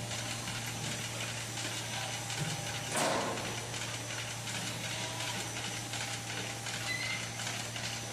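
Rotary goat milking parlour machinery running: a steady low hum with small mechanical clicks and rattles, and one brief louder burst of noise about three seconds in.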